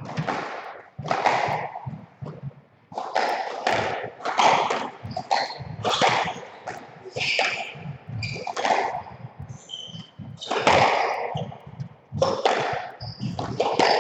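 Squash rally: the ball cracks off rackets and walls one or two times a second, each hit ringing briefly in the enclosed court, with short high squeaks of shoes on the wooden floor between shots.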